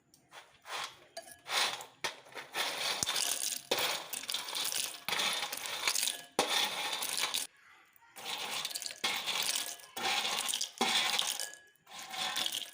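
Crisp fried rice-flour chips being tossed in a bowl to coat them with masala, clattering and rattling against the bowl and each other in a series of shakes with short pauses between them.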